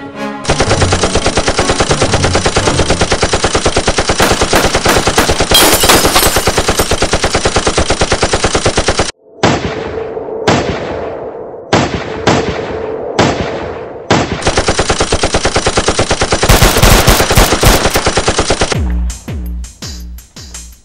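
Machine-gun fire sound effect: a rapid automatic burst lasting about eight seconds, then about six single shots, each with a trailing echo, then another rapid burst of about four seconds. Music with a beat comes in near the end.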